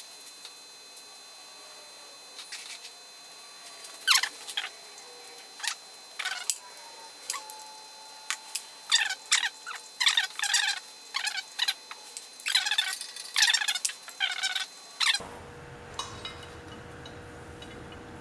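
Socket ratchet clicking in short quick runs as the cylinder head bolts are worked loose, with a few sharp metal taps among the runs. The clicking stops about three-quarters of the way in.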